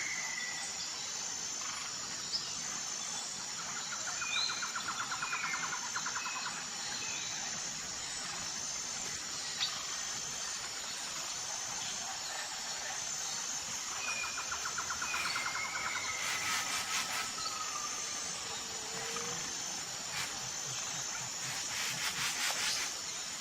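Outdoor nature ambience: insects chirring steadily at a high pitch in a pulsing rhythm, with short bird chirps and trills now and then. Two short stretches of rapid ticking come in the second half.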